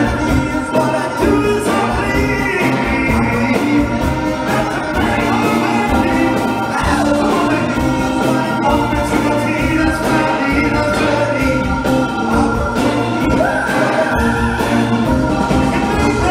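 Live band playing a song: drums, bass, electric guitars, organ and a horn section, with a lead vocal, heard from the audience in a large hall.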